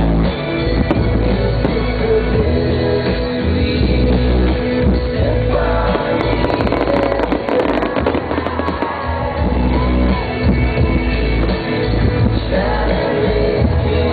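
Music with singing, with fireworks bursting and crackling over it; a run of sharp crackles comes between about six and nine seconds in.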